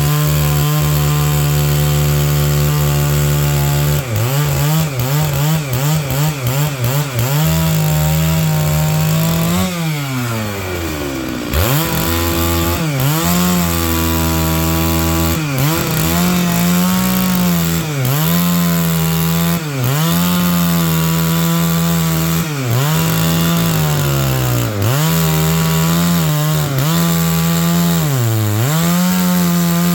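Stihl MS 660 two-stroke chainsaw running at high revs, cutting pine logs. Its pitch dips again and again as the chain bogs in the wood. About ten seconds in, the engine drops briefly toward idle and revs back up.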